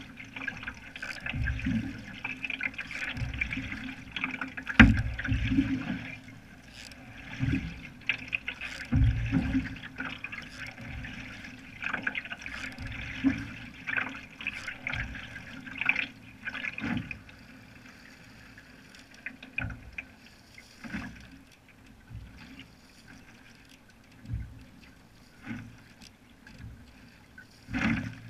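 Canoe paddle strokes: a splash and low thud about every second and a half as the blade pulls through the water, over water trickling along the hull. The trickling fades about halfway through.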